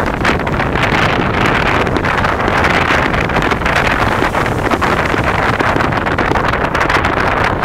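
Steady rushing wind noise on the microphone, full of fine crackles and with no distinct bangs.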